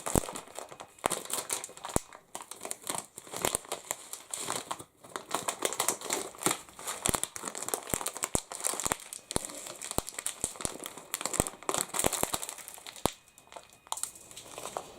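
Plastic bag being handled and crinkled: a resealable bag of fishbowl beads, with many irregular sharp crackles and clicks throughout.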